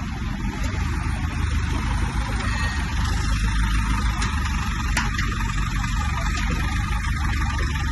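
15 kVA diesel generator's engine running steadily with a constant low drone.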